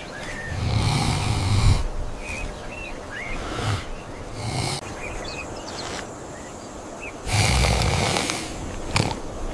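Wild boar grunting in several low bursts, with small birds chirping throughout.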